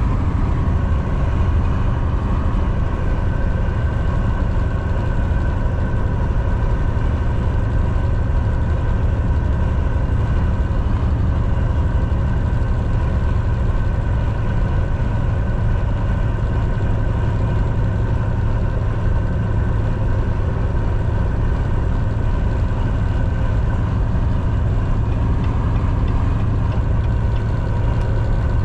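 Semi truck's diesel engine running steadily under road noise: a low, even drone with steady tones above it, unchanging in pitch and level.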